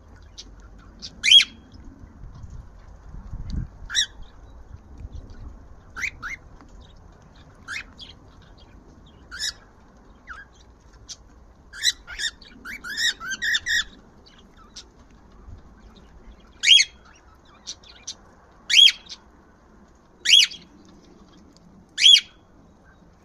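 Male cockatiel calling to his mate: separate short, sharp chirps and squawks, with a quick run of chirps about halfway through and four loud calls spaced about two seconds apart near the end.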